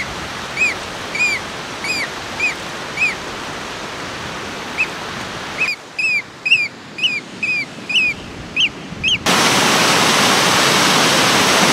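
Eurasian oystercatcher giving a string of sharp piping calls over running water, spaced at first, then quicker and louder as it flies off. About nine seconds in, the loud steady rush of a waterfall takes over.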